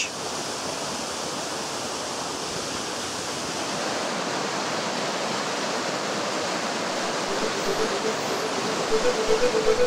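Rushing water of a fast-flowing stream, a steady, even rush with no distinct splashes. Faint music comes in near the end.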